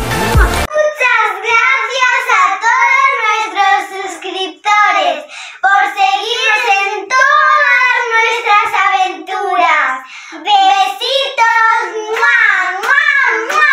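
A child singing in a high voice that slides up and down in pitch, in short phrases with brief breaks. A moment of music with a beat cuts off under a second in.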